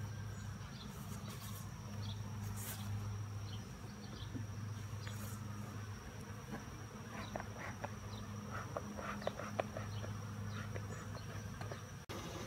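Open colony of Italian honeybees humming: a steady, even drone of many bees, with a few light taps about two-thirds of the way in.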